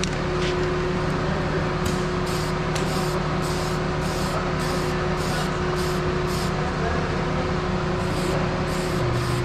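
Aerosol spray-paint can sprayed in many short bursts, roughly two a second, over the steady hum of an idling engine.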